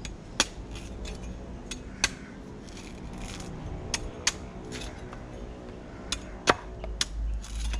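A blade chipping at the husk of a young Thai coconut: light, separate chopping strikes at uneven intervals, about eight in all, the loudest about six and a half seconds in.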